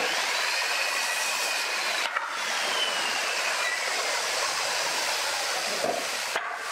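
Steady rushing hiss with a faint high whine that wavers and then falls in pitch. Light wooden knocks come through it about two seconds in and again near the end, as pine boards are set down on a concrete floor.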